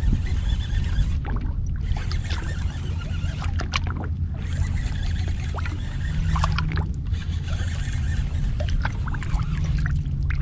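Small waves lapping and splashing against the hull of a small skiff, over a steady low wind rumble on the microphone.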